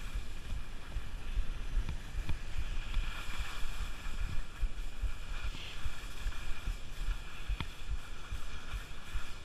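Skis hissing and scraping over soft spring snow during a steady downhill glide, with wind gusting on the microphone. A single sharp click about three-quarters of the way through.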